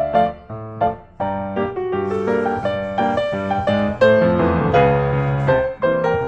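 Background piano music: a melody of quick successive notes over held lower notes.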